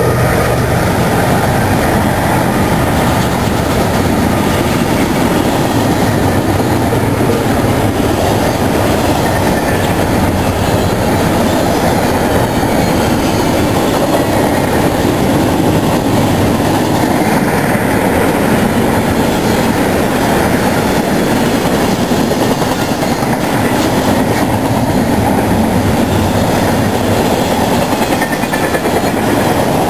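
Double-stack intermodal freight train's well cars rolling steadily past at close range: steel wheels on the rails making a continuous loud rumble with clacking.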